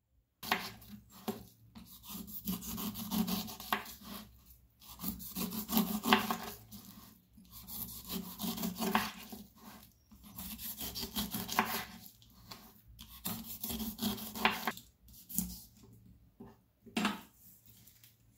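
A kitchen knife sawing through the tough, spiky rind of a whole pineapple on a wooden board, a rough crunching rasp in strokes of a second or two with short pauses between.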